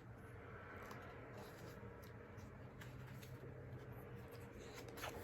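Faint handling of a photo book's paper pages, a few light clicks and rustles over a steady low hum.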